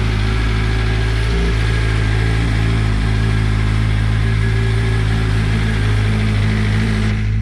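Sport motorcycle's inline-four engine idling steadily, with no revs.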